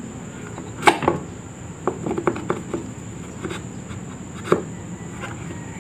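Irregular clicks and knocks of an electric fan's parts and screws being handled as the screws are put back in during reassembly, with two sharper knocks, about a second in and again past the four-second mark.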